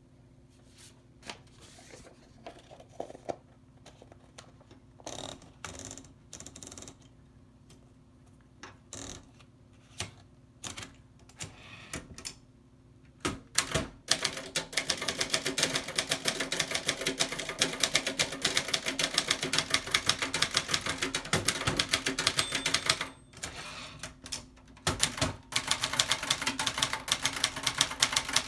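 1967 Brother Charger 870 manual portable typewriter, in serviced working order. The first half holds scattered single clicks and short mechanical noises. From about halfway, keys are typed in a rapid run of clacks, which pauses briefly and then resumes near the end.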